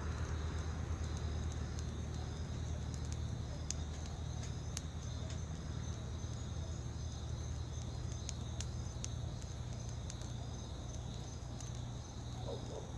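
Crickets chirping steadily in the night, with scattered sharp crackles from small flames burning around a grave, over a steady low hum.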